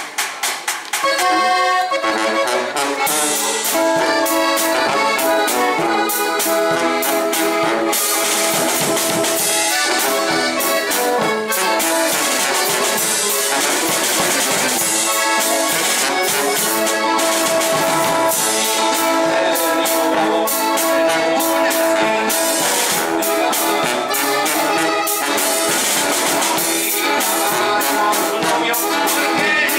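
Live norteño-banda music, the accordion playing lead over a sousaphone and drum kit, with steady percussion hits throughout.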